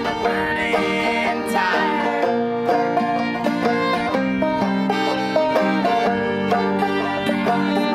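Acoustic string band of banjo, fiddle and acoustic guitar playing an old-time tune together. Two voices sing for the first two seconds or so, then the instruments carry on alone.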